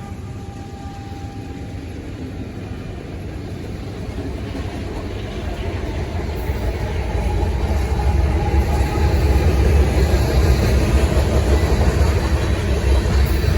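Diesel freight train approaching and passing: the locomotive horn trails off in the first couple of seconds, then the low rumble of the multi-locomotive consist grows louder and holds steady from about eight seconds in.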